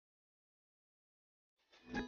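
Dead silence, then a short, faint sound swells in near the end.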